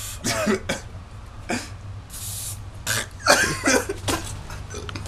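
A man coughing and sputtering in several harsh bursts after an aerosol spray in the face, with a short hiss about two seconds in.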